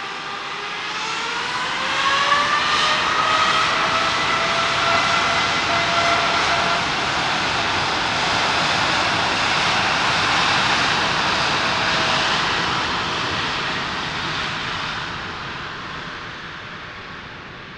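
Boeing 787-8 airliner's Rolls-Royce Trent 1000 turbofans spooling up to takeoff thrust: a rising whine over the first couple of seconds, then a steady whine under a loud jet roar as the airliner accelerates down the runway, fading over the last few seconds as it pulls away.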